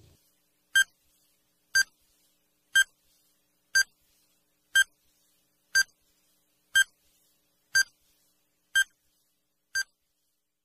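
Countdown timer sound effect: short electronic beeps, one a second, all at the same pitch, ten in a row.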